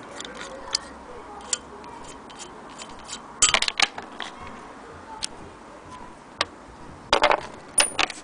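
Willcox & Gibbs hand-crank sewing machine clicking and ticking as its handwheel and crank are handled, with two short bursts of louder clacks about three and a half and seven seconds in.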